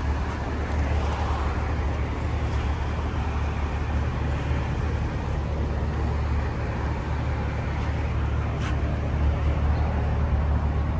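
Chevrolet C8 Corvette's V8 idling steadily, with one faint click near the end.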